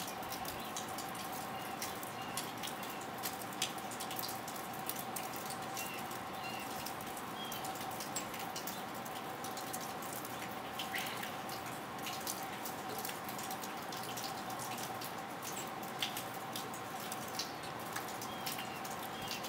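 Steady hiss with a constant low hum, sprinkled with many faint, irregular ticks and clicks.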